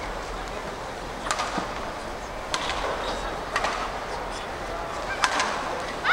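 Badminton rackets striking a shuttlecock in a rally: sharp cracks about a second apart over low arena crowd noise, with a burst of crowd applause and cheering at the very end.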